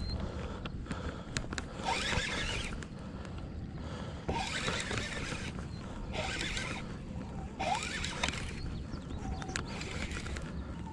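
Water swishing and lapping along a kayak's hull as it glides forward, in short irregular washes every second or two over a low steady rumble.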